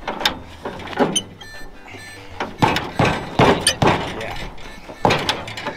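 Irregular metal clunks and knocks from work on a wrecked car's wheel, about a dozen in all, with background music underneath.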